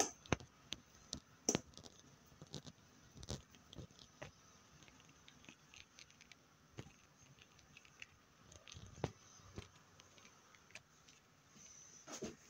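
Fingers poking and pressing thick slime with makeup mixed in, giving irregular small sticky clicks and pops. A few louder pops come in the first few seconds.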